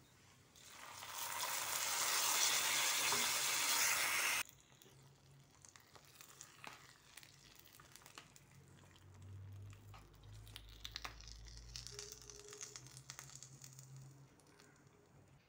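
Hot oil tempering of dried red chillies and curry leaves sizzling loudly for about four seconds, cutting off suddenly. Then come faint spoon clicks and scrapes as it is stirred into the paal kappa.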